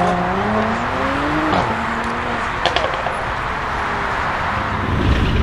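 Brabus-modified exhaust of a Mercedes-AMG GLE43's twin-turbo V6 accelerating, the engine note rising in pitch for about a second and a half before it lets off, followed by a couple of sharp pops.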